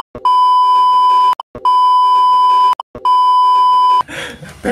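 Censor bleep over speech: a steady high beep tone in three long beeps of about a second each, with short breaks between, then laughter near the end.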